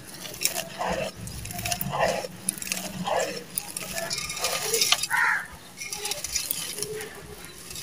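Dry, gritty red sand-cement pouring from hands and crumbling over a terracotta clay pot: a grainy hiss packed with small ticks of grit striking the pot and the sand heap. A few short, faint sounds sit in the background, the loudest about five seconds in.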